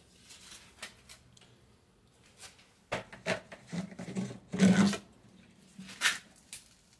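Scattered handling noises: short rubs and knocks, bunched together from about three to five seconds in, with one more just before the six-second mark.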